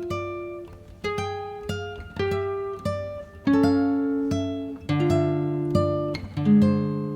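Background music: an acoustic guitar picking slow single notes and chords, each note ringing and then fading.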